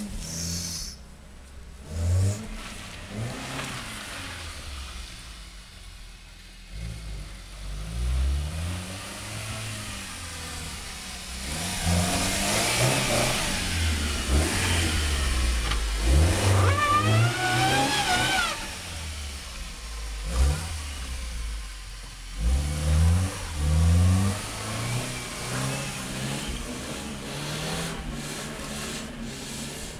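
Toyota Corolla 4WD's engine revving up and down repeatedly as the car drives in snow. Near the middle comes a louder stretch of rushing noise with a short rising whine.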